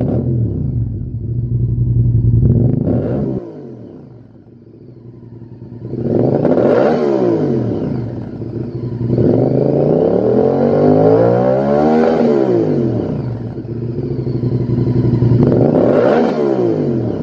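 Honda VTR1000's V-twin engine running through a Lextek GP1 aftermarket silencer, revved while standing still. The revs climb and fall back about four times, with the longest, highest climb in the middle, settling lower between the blips.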